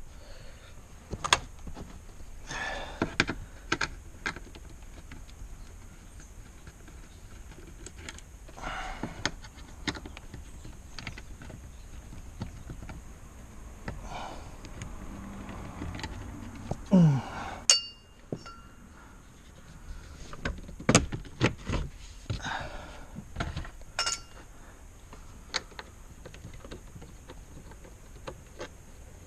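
Scattered clicks, clinks and knocks of hand tools and plastic interior trim being worked on inside a car's cabin, with a short squeak sliding down in pitch a little past the middle.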